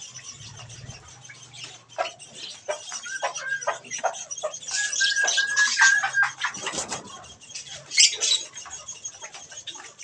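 Budgerigars chattering and chirping in a mixed flock, with many quick clicks and taps of beaks pecking at the spinach. A few held whistled notes come in the middle, and a sharp, loud chirp about eight seconds in.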